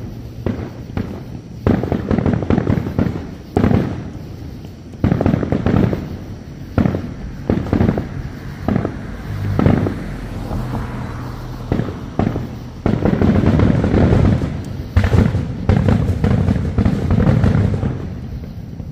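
Aerial fireworks shells bursting one after another in a rapid barrage, the booms mixed with crackling.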